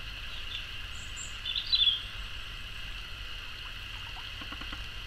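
Outdoor ambience of steady hiss and low rumble, with a couple of short bird chirps about one to two seconds in.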